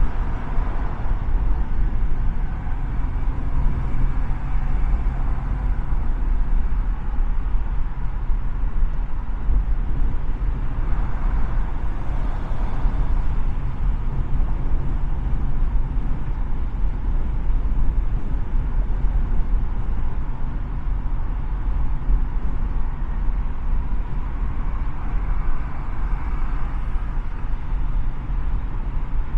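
A car driving at freeway speed: steady road and tyre noise with a low engine hum.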